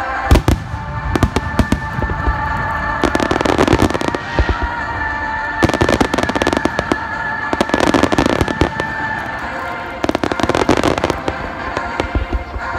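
Aerial firework shells bursting: sharp bangs followed by rapid crackling, arriving in several dense volleys a second or two apart.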